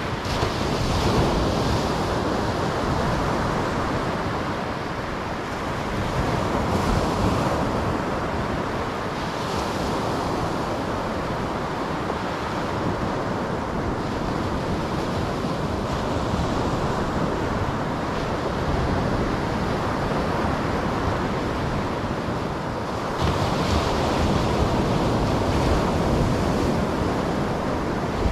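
Surf breaking on a sandy beach, a steady wash of waves that swells louder a few times as bigger waves come in, with wind on the microphone.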